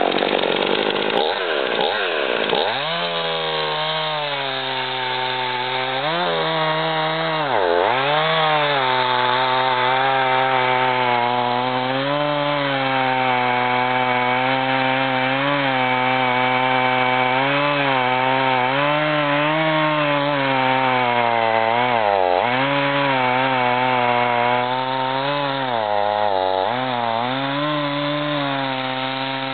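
Husqvarna 55 two-stroke chainsaw running at high revs as it cuts through wood with a dull chain. The engine pitch drops steeply a few times as the saw bogs under load, then picks back up.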